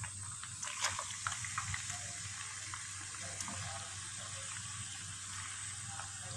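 Marinated chicken pieces sizzling in hot oil and garlic-ginger paste in a karahi as they go into the pan, a steady hiss with a few clicks and pops in the first couple of seconds.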